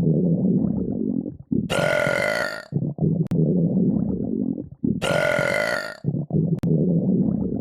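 Repeated burping: a long, low, rasping burp followed by a shorter, higher-pitched burp, the same pair coming round again about every three seconds.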